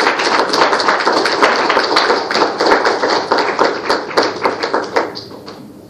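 Audience applauding, a dense patter of claps that thins out and fades about five seconds in.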